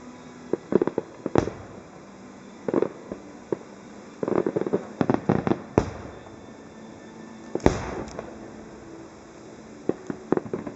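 Aerial fireworks shells bursting: irregular sharp bangs and quick clusters of crackling pops. There is a dense run of pops in the middle, and loud single bangs about a second and a half in and past seven seconds.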